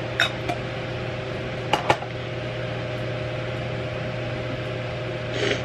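Steady electric fan motor hum, with a few light clicks as makeup and a brush are handled in the first two seconds and a brief swish near the end.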